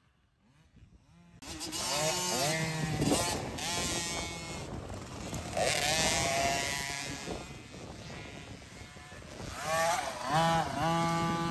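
Dirt bike engine revving hard, its pitch climbing and dropping again and again as the throttle is worked through the gears. It comes in suddenly after about a second and a half of near silence.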